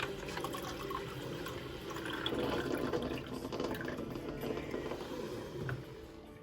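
Liquid pouring and trickling steadily, dying away near the end.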